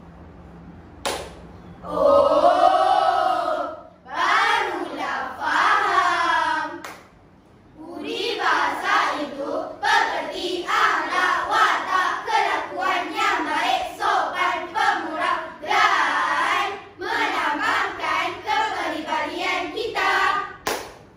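A children's choir singing and chanting in unison in Malay, in short rhythmic phrases with a brief pause partway through. A sharp clap comes about a second in and another near the end.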